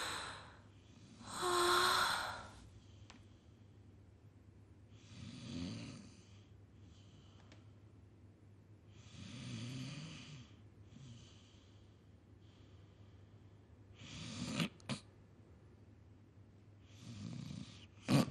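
A person gasping with a voiced moan, then slow snoring breaths about every four seconds, the last ones ending in sharp snorts.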